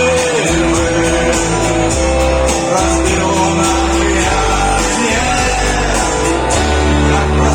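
A song sung with guitar in a rock style, with long held vocal notes over a steady bass line and a regular beat.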